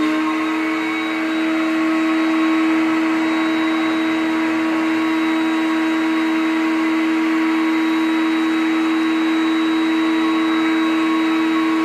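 Vacuum cleaner running steadily with an even hum as its hose nozzle sucks sawdust off a bandsaw table.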